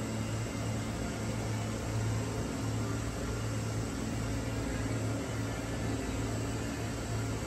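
Steady low hum with an even hiss from the aquarium's running life-support machinery: the pumps, filters and ventilation of the tanks.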